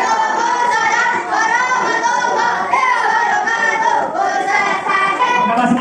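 A man singing a slow melody into a microphone, amplified through a loudspeaker, with long held notes that waver in pitch.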